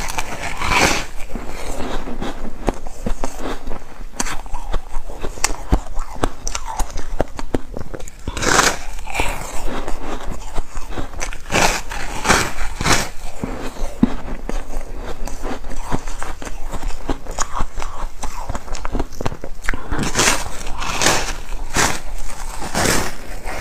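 Close-miked biting and crunching of a block of frozen foam ice: a continuous fine crackling as the frosty ice breaks between the teeth, broken by several louder crunching bites.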